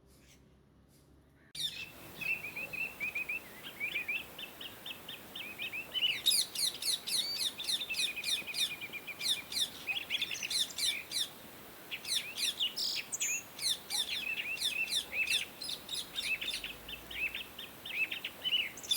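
Indian ringneck parakeets chirping: after a quiet first second and a half, a dense, busy run of quick, high, downward-sweeping chirps from several birds at once.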